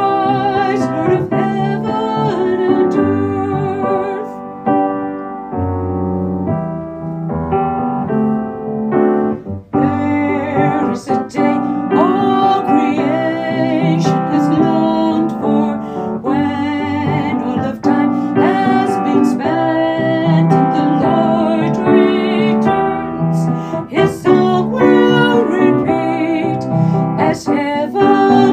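A Christmas worship song sung with vibrato to piano accompaniment. A thinner, softer stretch falls about four to nine seconds in, then the singing and piano come back fuller.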